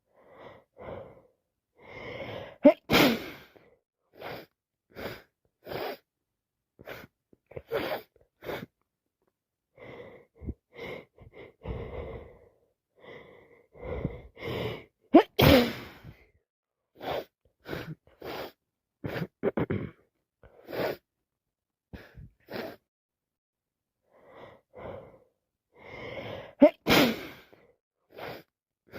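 A woman with a congested head cold having a sneezing fit: repeated sneezes, the loudest three about 3, 15 and 27 seconds in, with short sniffs and gasping breaths between them.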